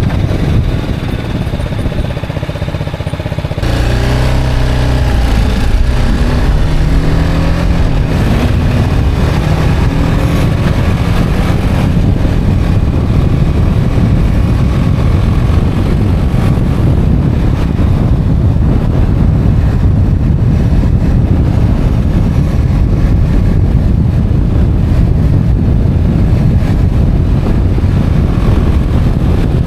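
Motorcycle engine running low for a few seconds, then pulling hard from a few seconds in, its pitch climbing again and again as it shifts up through the gears. It then settles into a steady rush of wind noise over the engine at cruising speed.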